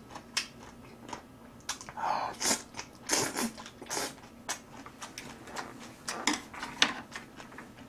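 A person eating instant fried noodles: wet chewing with irregular mouth clicks and smacks, and a few louder slurps of noodles.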